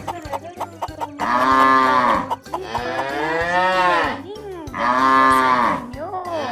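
Cow mooing: three long moos, each rising and falling in pitch, with short pauses between.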